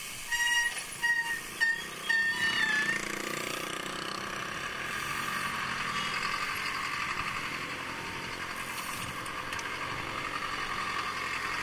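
Four or five short, high-pitched electronic beeps in the first few seconds, then a vehicle engine running steadily close by, with a rattly undertone.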